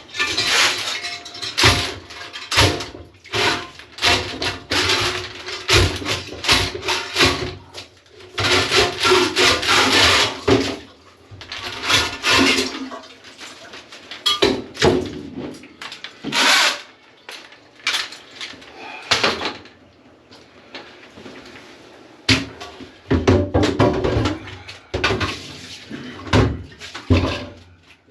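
A clogged toilet being worked on: repeated irregular bursts of water sloshing and splashing, with rubbing and scraping sounds in between.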